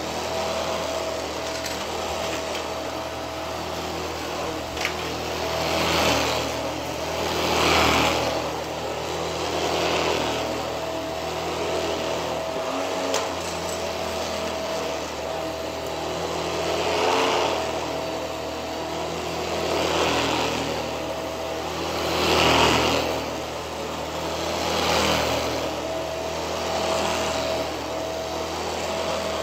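Stick vacuum cleaner running over a thick shag rug: a steady motor hum with a high whine, swelling into loud rushes every couple of seconds as the head is pushed and pulled through the pile.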